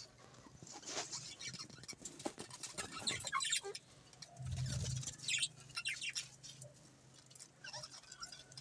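Budgerigars chirping softly in short scattered calls, mixed with small clicks. A brief low hum comes about halfway through.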